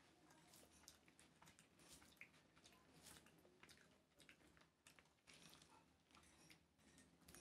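Faint eating sounds: scattered soft clicks of chewing and of fingers mixing rice on a banana leaf.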